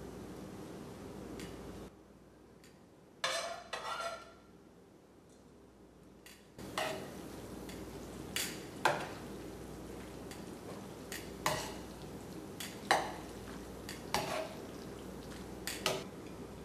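A utensil tossing spaghetti through tomato sauce in a stainless steel sauté pan, clinking and scraping against the pan about once a second over a steady simmering hiss. A short double clatter comes a few seconds in, during a quieter stretch.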